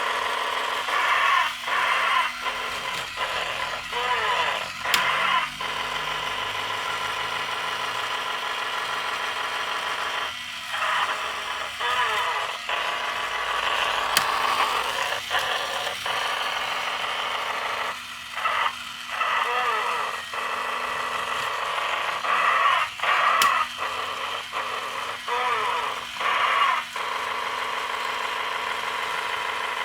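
Battery-operated Robot Commander III toy robot playing its electronic sound effects and voice through its small, tinny speaker, in warbling phrases broken by short gaps. A steady low hum runs underneath.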